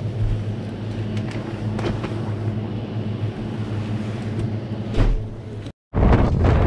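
Steady low electrical hum of a shop's refrigerated glass-door drinks cabinets, with a few light clicks as a cabinet door is handled. Near the end, after a sudden cut, wind buffets the microphone loudly.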